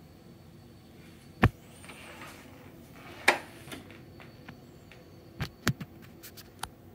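A few sharp clicks and knocks over a faint steady hum: two loud clunks about a second and a half and three seconds in, then a run of lighter clicks near the end.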